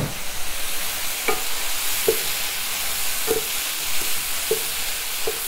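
Vegetables and spices sizzling in a frying pan with a little water just added, while a wooden spatula stirs them, knocking and scraping against the pan a few times.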